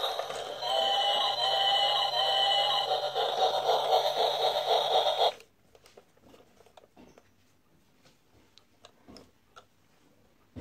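Battery-operated see-through gear toy train running, its plastic gears clattering under an electronic tune of beeping notes. It is switched off about five seconds in and stops abruptly, leaving only faint plastic clicks from handling.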